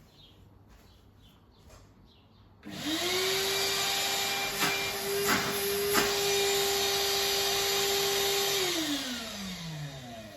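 Numatic WV380-2 wet vacuum's motor switched on about two and a half seconds in, running at a steady high whine for about six seconds with a few short clicks, then switched off and winding down with a falling whine; the motor still runs.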